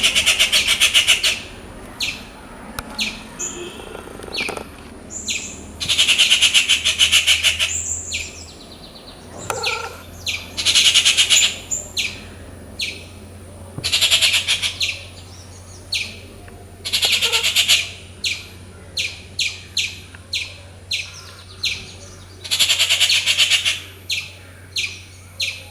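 Rufous treepie calling loudly: harsh, grating phrases a second or two long, repeated every five or six seconds, with short sharp notes in between.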